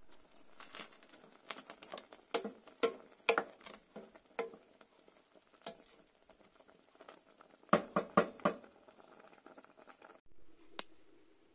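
Cream sauce with chicken bubbling hard in a stainless steel pot, popping and clicking irregularly, while a wooden spoon stirs and knocks against the pot. A quick run of louder knocks comes about two-thirds of the way through.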